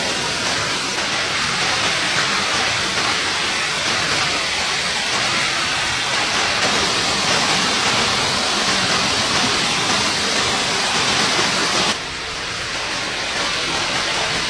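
Rushing water of a shallow forest stream, a steady even hiss. About twelve seconds in it changes suddenly to a slightly quieter rush.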